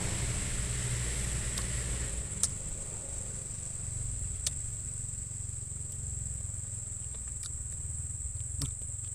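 Steady high-pitched drone of insects calling, one even tone, over a low rumble, with a few faint clicks.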